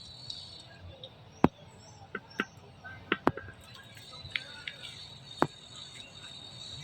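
About six sharp clicks or snaps, scattered and irregular, with faint short high chirps between them.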